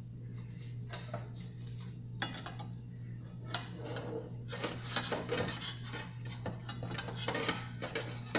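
A spatula scraping and clinking against a frying pan as pancakes are flipped: scattered light clatter that grows busier in the second half, over a steady low hum.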